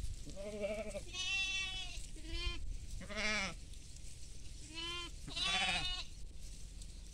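Goats and sheep bleating: about six wavering calls under a second each, some low and some higher-pitched, from several animals with short gaps between.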